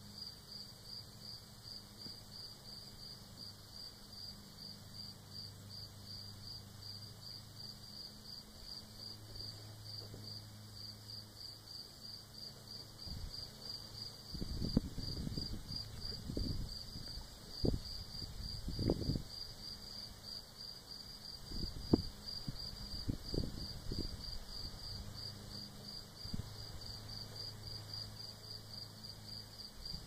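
Crickets chirping steadily in an even, rapid train of high chirps. In the middle stretch, irregular low thumps and rumbles are louder than the chirping.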